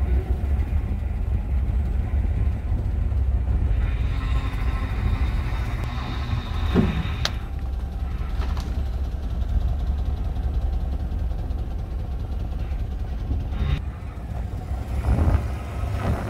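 Steady low rumble of a car driving slowly over a rough road, with a few faint clicks and a short creak.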